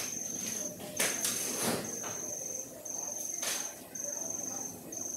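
Cricket chirping in a high, steady trill that comes in stretches of about a second with short gaps, over a few brief household noises about a second in and again past the three-second mark.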